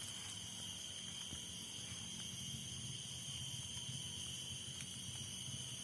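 Forest insects, crickets or cicadas, keeping up a steady high-pitched chorus at several pitches, unchanging throughout, over a faint low rumble.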